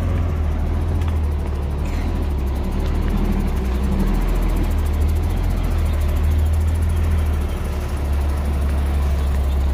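Heavy diesel engine of construction machinery running steadily, a deep, even low rumble with no clear impacts.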